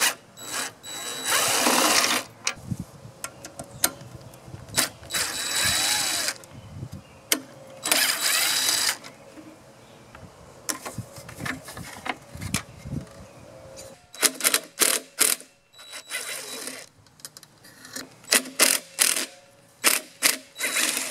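Cordless drill-driver running in three short bursts, backing out the muffler bolts on a two-stroke blower engine, followed in the second half by a string of sharp clicks and knocks as bolts and metal parts are handled.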